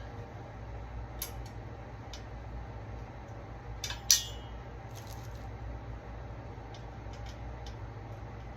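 Small hard clicks and clinks of metal hardware and tools being handled while assembling flat-pack furniture, with one sharper clack that rings briefly about four seconds in, over a steady low hum.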